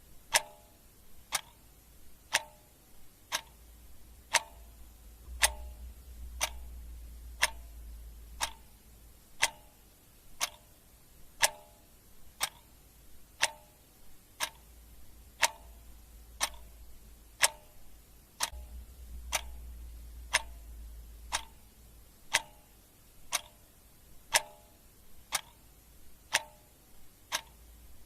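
Clock ticking steadily, about one sharp tick a second, some ticks carrying a short hollow ring.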